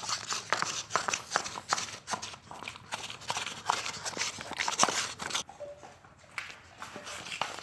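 Dog licking ice cream out of a cup held close to the phone: a run of quick irregular smacking clicks, several a second, that stops about five and a half seconds in.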